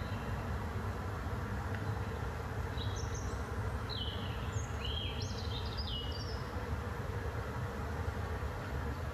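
Wind in a pine forest: a steady rush with a low rumble. From about three seconds in, a songbird sings a short phrase of quick whistled notes that lasts a few seconds.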